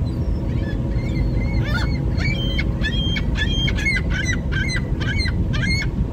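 Ring-billed gull giving its long call, a quick series of short yelping calls at about two a second with its head thrown back, starting about a second and a half in. Underneath is the steady low rumble of the boat it rides on.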